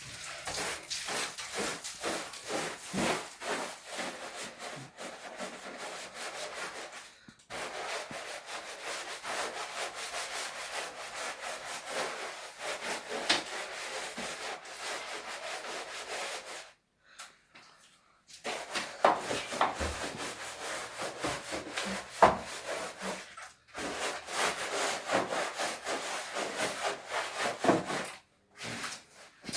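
A cloth scrubbing a rough surface in quick, repeated rubbing strokes, stopping now and then for a moment, once for over a second a little past halfway.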